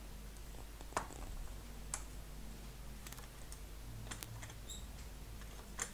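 Small tools clicking and tapping at a microsoldering bench: a handful of irregular light clicks over a faint steady hum.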